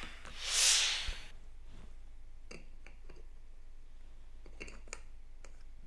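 A short breathy hiss, then scattered light clicks and taps from a camera lens and its plastic caps being handled and fitted.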